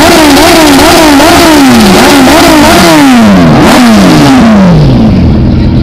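Suzuki Hayabusa and Kawasaki Z900 inline-four superbike engines being revved on their stands. One is held at steady revs while the other is blipped in quick rises and falls of pitch, about two a second. The blips stretch into longer falls back toward idle near the end.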